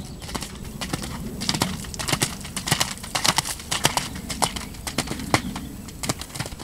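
A horse's hooves striking wet sand at the canter, a quick run of irregular thuds as it comes up to a show jump, thinning out near the end as it takes off over the fence.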